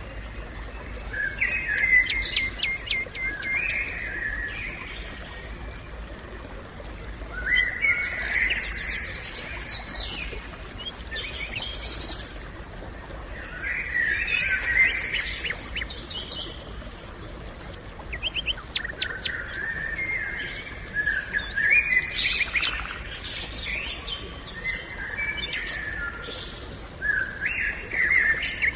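Forest birds singing: short phrases of chirps and warbled notes come every few seconds, several overlapping, over a faint steady background hiss.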